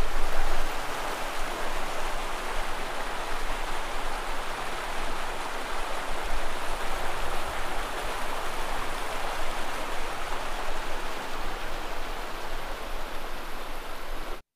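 Steady rushing of flowing water, stopping suddenly near the end.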